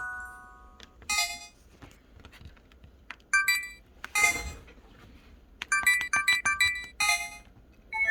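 Pantech Sky IM-S480 tilt phone's menu sound effects: short electronic chime tones in separate bursts, including a quick run of beeps about six seconds in, with faint key clicks between them. A longer phone melody starts at the very end.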